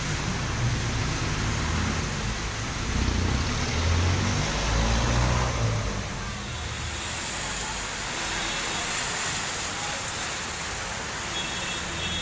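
Heavy rain falling steadily on a wet street, with a passenger jeepney's engine rumbling past during the first half and fading out about six seconds in.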